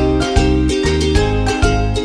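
Background music for a channel intro: a tune of plucked notes over a steady, evenly repeating bass beat.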